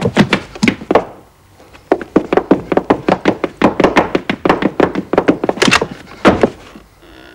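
Cartoon sound effect: a fast run of hollow knocks, about seven a second, in two stretches with a short pause about a second in, and a couple of louder strokes near the end.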